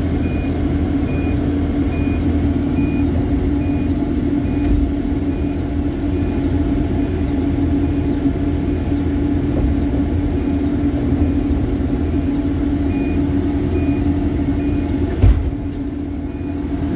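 Wacker Neuson articulated dumper's diesel engine running with a steady drone, heard from inside its cab, while a warning beeper sounds a little over twice a second. A single knock comes about 15 seconds in, after which the engine sounds slightly quieter.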